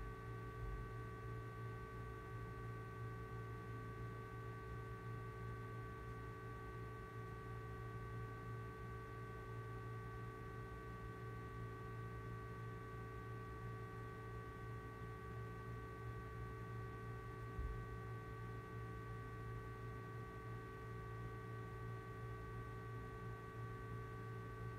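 Steady low electrical hum with a few faint, constant high tones over it, and a single soft low thump about seventeen seconds in.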